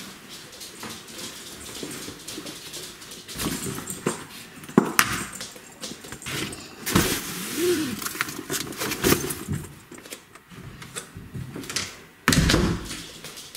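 A bag and belongings being put away in a closet: irregular rustling, bumps and knocks, with a louder clatter about twelve seconds in.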